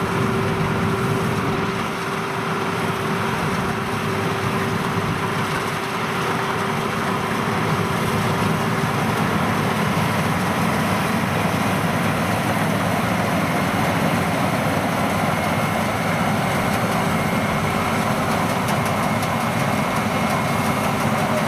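FMWorld WD102PRO rice combine harvester running steadily while harvesting, its engine and cutting and threshing machinery making an even, dense mechanical noise. A steady hum in it fades out about halfway through, and a faint higher whine comes in near the end.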